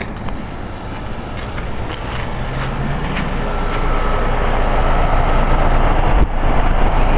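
2009 Rheem Classic Series 5-ton heat pump running in heat mode: a steady mechanical hum from the outdoor unit's fan and compressor. It grows louder over the first few seconds, with a few faint clicks over it.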